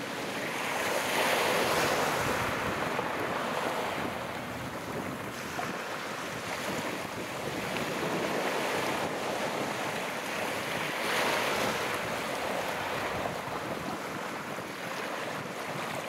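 Sea waves breaking and washing up the shore, with wind buffeting the microphone. The wash swells louder about a second in and again about eleven seconds in.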